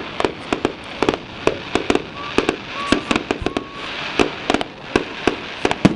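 Fireworks display going off in a rapid, uneven string of sharp bangs, several a second.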